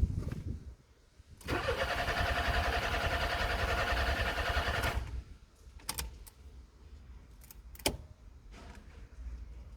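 Smart forfour 1.3 petrol engine being cranked by its starter motor for about three and a half seconds without firing, then the cranking stops abruptly. It is the sound of a no-start despite a new fuel pump and spark plugs. A few sharp clicks follow.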